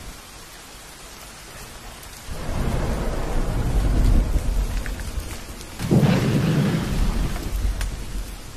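Wind buffeting a phone microphone, a low rumbling rush that swells in two gusts, about two seconds in and again about six seconds in.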